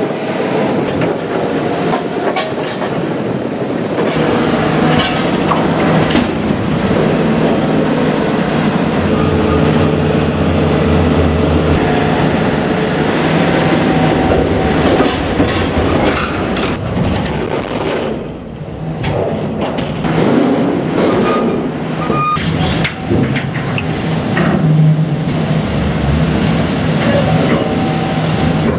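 Hydraulic excavator with a demolition shear tearing up the steel plating of a tank's floating roof: the engine and hydraulics run steadily under repeated sharp metal clanks and squealing.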